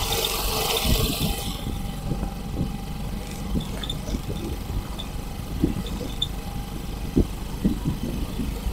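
A vehicle engine running, with a steady low rumble and irregular low thumps. A burst of hiss comes in the first second or so.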